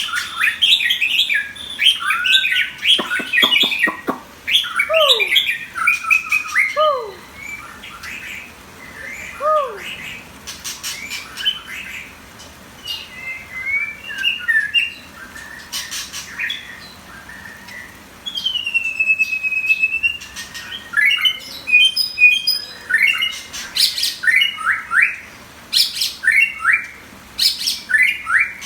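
A shama songbird singing a varied, loud song: rapid chirps and trills, clear down-slurred whistles and sharp clicking notes, in bouts separated by short pauses. The song is busiest at the start and again in the last third.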